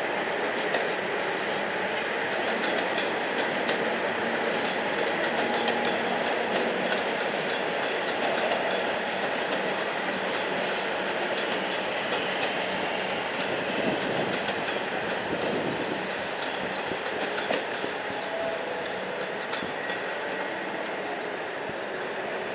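Melbourne suburban electric train, a Comeng or Siemens set, running through the station with continuous wheel-on-rail noise.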